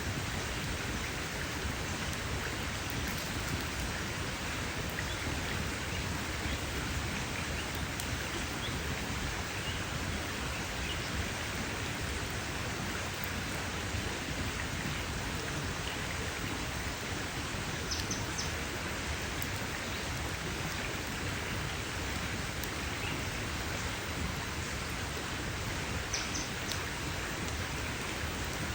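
Campfire burning with a steady hiss and scattered small crackles and pops. Two brief high squeaks come through faintly, one past the middle and one near the end.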